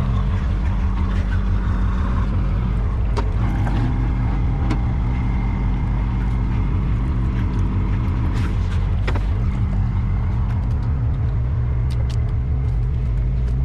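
A diesel engine idling with a steady low hum, with a few light clinks and splashes of water as a plate and a pot are rinsed.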